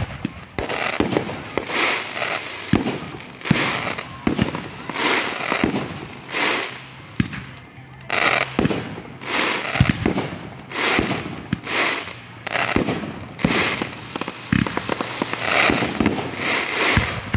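Consumer aerial fireworks firing in a rapid string of launches and bangs, about one or two a second, with crackling and hissing between the shots.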